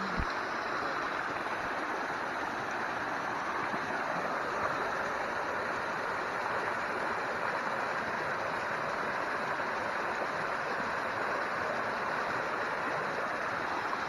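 Small woodland waterfall, a stream spilling over rock ledges into a shallow pool, making a steady rushing splash.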